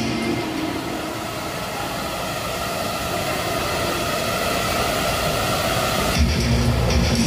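A swarm of small quadcopter drones buzzing steadily, their propellers giving an even hiss with a faint hum. Background music comes back in about six seconds in.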